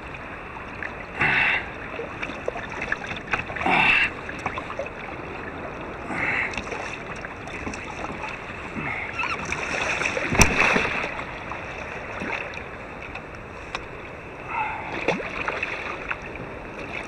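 Water slapping and splashing around a fishing kayak during the fight with a big red drum, with several louder splashy bursts and a sharp knock about ten seconds in; near the end the hooked red drum thrashes at the surface beside the hull.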